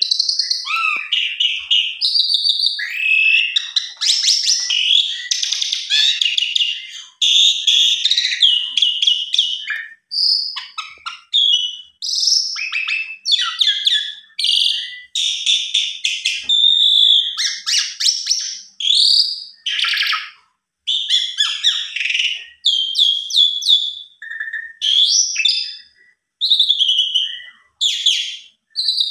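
Asian pied starling (jalak suren) singing a long, varied song of whistles, chatters and buzzy rattles with mimicked notes worked in. The song is nearly unbroken for the first ten seconds or so, then comes in short phrases with brief gaps. This is the excited, full-repertoire singing that a rival's song sets off.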